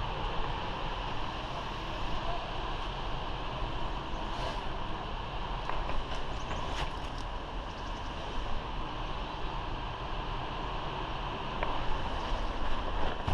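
Steady outdoor background noise with a low rumble, and a few faint short ticks around the middle.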